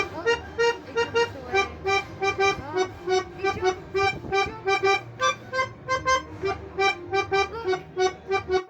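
Background music: a lively accordion tune played in quick, separate notes, about three a second, breaking off just before the end.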